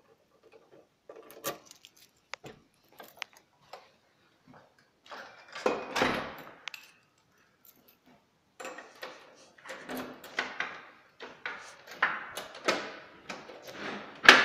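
Keys jangling and sharp clicks of a door being handled, then a louder rustling burst and a string of irregular scraping and rustling noises about twice a second.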